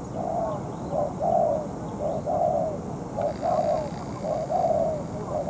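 Spotted dove cooing: a short note followed by a longer one, repeated about once a second, with faint high chirps of other birds behind.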